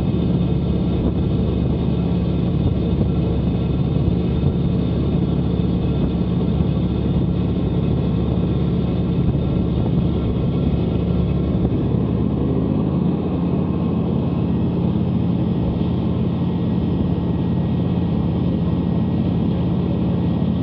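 Fishing boat's engine running steadily at cruising speed, a constant drone, with water rushing and spraying along the hull as the boat cuts through the sea.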